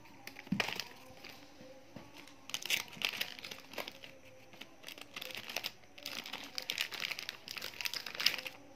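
Plastic packaging crinkling as it is handled, in irregular bursts of rustling.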